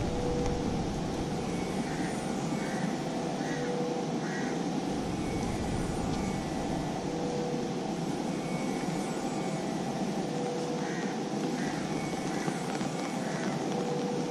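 A steady rushing noise with a bird calling a series of four short notes twice, once early and once near the end.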